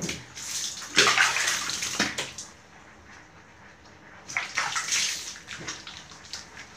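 Water poured from a plastic dipper over a wet cat, splashing and running onto a tiled floor, in two bursts: one starting about half a second in, the other about four seconds in.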